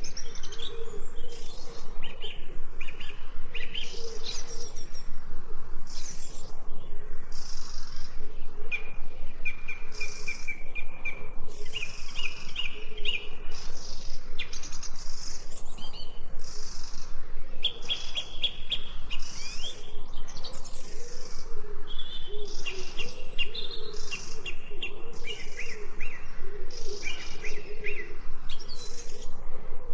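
Songbirds chirping and singing, many short overlapping calls with runs of quick trilled notes.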